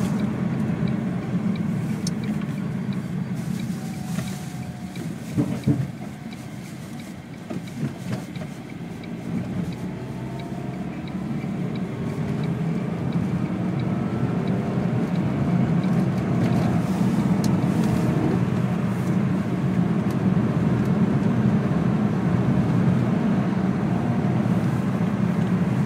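Lada Vesta driving on a snowy road: steady engine and tyre noise that drops as the car slows about five seconds in, with a couple of short knocks, then the engine note rises as it speeds up again and settles into a steady cruise.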